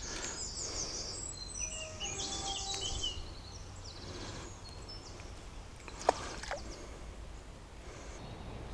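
Birdsong: a fast run of short, high chirping notes over the first few seconds, above a steady low outdoor background. Two sharp clicks come about six seconds in.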